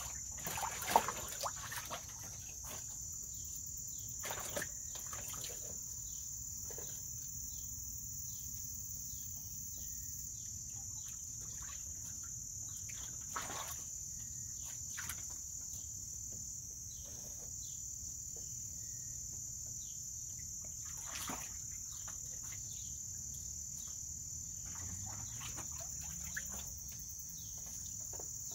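A steady, high insect chorus, with the splashes of an American mink swimming in a shallow plastic wading pool. The loudest splash comes about a second in, and smaller ones follow now and then.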